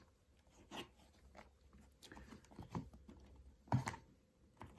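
Packing paper rustling and small knocks as boxed lighters are handled and set down, with a sharper knock about four seconds in.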